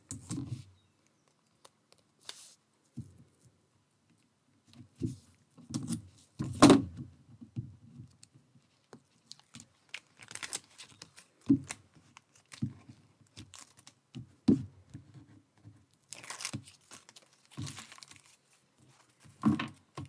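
Card and paper being handled, with the crackling rip of backing being peeled off strips of double-sided tape and small knocks as the card is pressed down.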